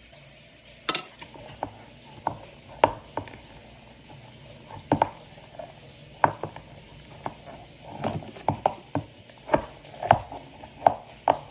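Sticky homemade slime being kneaded and squished by hand, making irregular wet pops and squelches.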